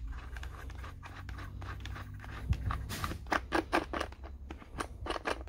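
Plastic top cover and air filter of a Stihl MS880 chainsaw being handled and taken off: scraping with a sharp click about two and a half seconds in, then a quick run of plastic clicks and knocks.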